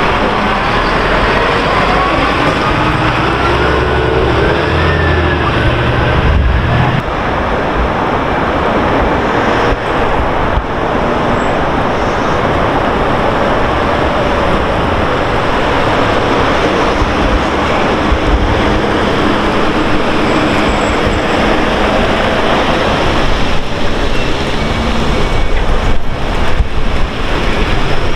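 Fire-service aerial ladder truck's diesel engine pulling away, with a rising whine, until a cut about seven seconds in. Then steady street traffic noise, growing louder near the end as a fire-service van drives up close.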